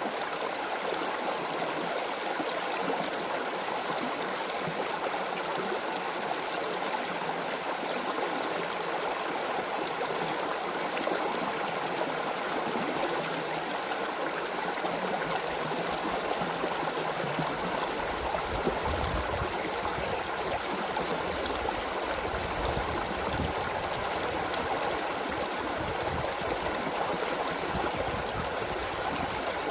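Creek water flowing and gurgling in a steady rush. A low, uneven rumble joins in about two-thirds of the way through.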